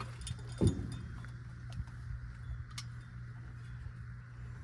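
Hand work on a truck engine: a knock about half a second in, then a few light metallic clicks as a fitting is handled, over a steady low hum.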